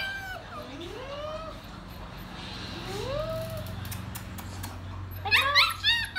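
Dog whining: two drawn-out rising whines in the first half, then a quick run of high yips and whimpers about five seconds in.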